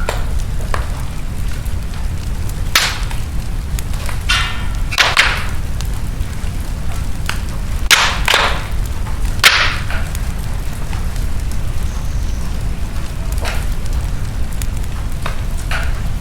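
Wood fire burning in a fireplace: a steady low rumble with scattered sharp crackles and pops, most of them between about three and ten seconds in.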